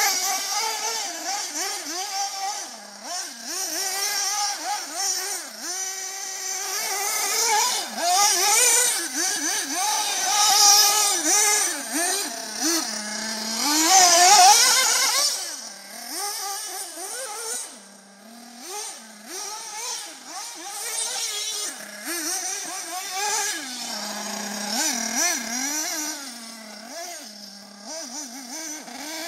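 Thunder Tiger EB4 S3 1/8-scale nitro RC buggy's small glow engine revving up and down as it is driven, its pitch rising and falling repeatedly and dropping back to idle between bursts. It is loudest about halfway through, as the buggy passes close.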